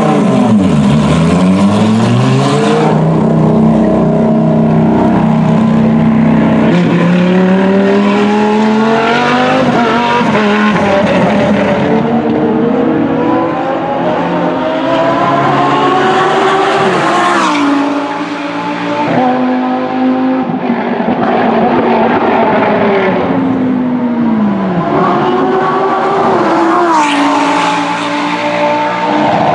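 Lamborghini Gallardo GT3 race car's 5.2-litre V10 engine. The revs fall just after the start and hold low and steady for a few seconds. It then accelerates hard in long rising climbs, with the revs dropping sharply twice, about halfway and about three-quarters of the way through, before climbing again.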